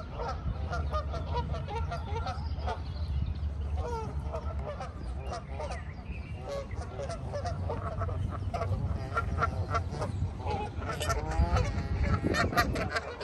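Many birds calling over and over in short, overlapping calls, over a steady low rumble.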